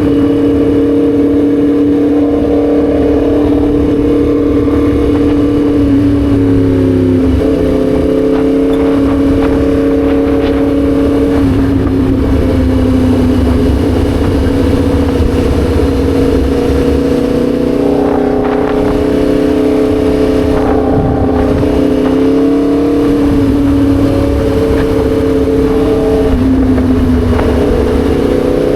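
Yamaha MT-10 SP's crossplane inline-four engine running under way at fairly steady revs. Its note shifts slightly about seven seconds in and again a couple of times near the end.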